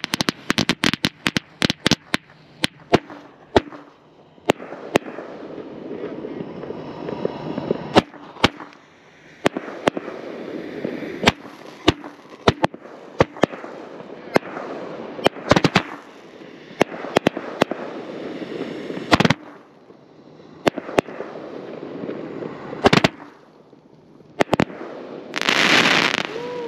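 Aerial fireworks going off: a quick run of sharp cracks at the start, then single sharp reports every second or so over a rumbling wash of shots. Near the end comes a loud hissing burst.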